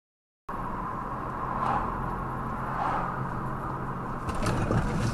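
Silent for the first half second, then a car's road and engine noise as heard from inside the cabin. A few sharp knocks or clunks come near the end.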